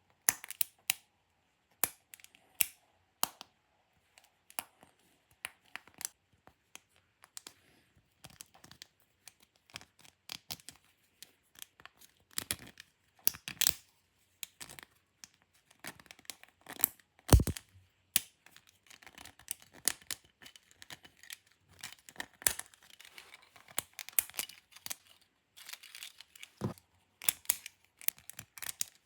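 3D-printed plastic split ring being handled, its parts clicking and scraping against each other in irregular bursts, with one louder knock about 17 seconds in.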